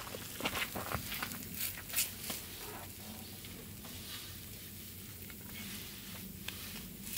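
Melted cheese being tipped and scraped out of a small cast-iron skillet: a handful of light clicks and taps of a utensil against the pan in the first two seconds or so, the loudest about two seconds in, then a soft faint sizzle.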